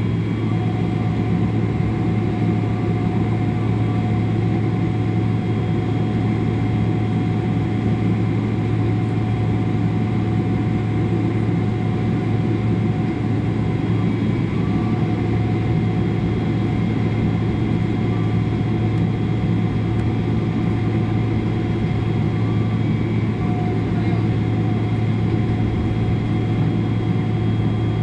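Steady cabin noise inside a Boeing 777-300 with its twin jet engines at idle before takeoff: a constant low hum with faint steady whines above it and no change in power.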